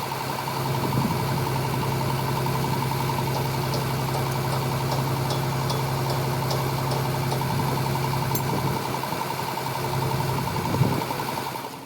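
An engine idling steadily, with a few faint light ticks over its even hum.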